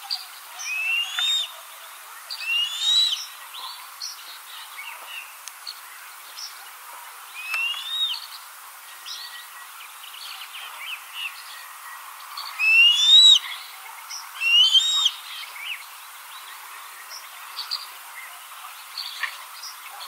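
Juvenile African harrier hawk (gymnogene) calling with thin rising whistles, about five of them spread a few seconds apart, among short high chirps from other birds.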